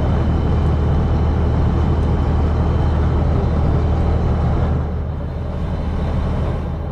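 Fishing trawler's engine running steadily with a deep hum and a wash of noise above it, easing off slightly about five seconds in.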